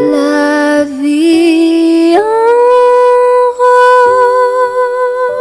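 Background music of long held, sustained notes that slide up to a higher note about two seconds in.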